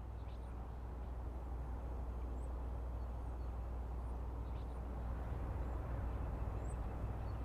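Outdoor ambience: a steady low rumble with a few faint, high bird chirps scattered through it.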